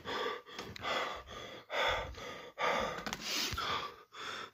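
A person breathing hard and fast, quick heavy gasping breaths in and out about two a second, worked up from excitement to the point of feeling faint.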